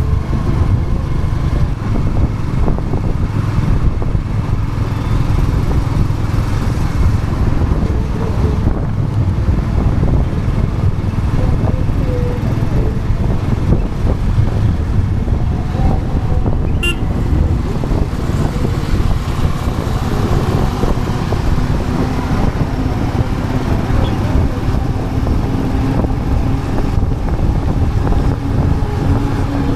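Royal Enfield Classic 350's single-cylinder engine running steadily while riding, its exhaust beat mixed with road and wind noise. A brief sharp high sound cuts in about halfway through.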